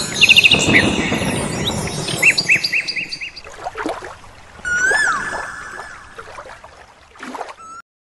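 Birds chirping in quick repeated notes over a rushing of running water, then one longer whistled call that rises and falls, about five seconds in. The sound fades toward the end.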